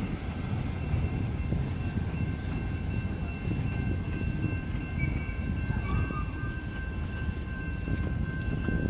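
Heritage passenger train coaches rolling across a street level crossing: a steady low rumble with a few faint steady high tones above it.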